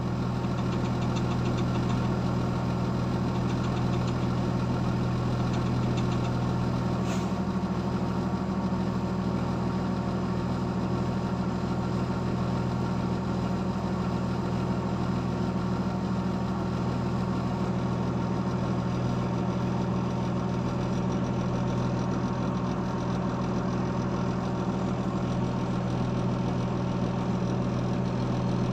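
Heavy road-construction machine's diesel engine idling steadily, an even low hum, with one faint click about seven seconds in.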